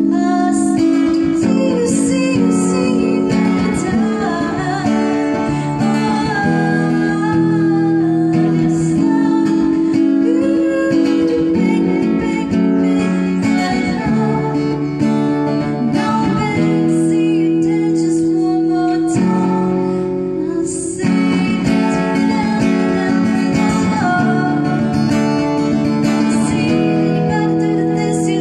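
A woman singing while strumming chords on an acoustic guitar.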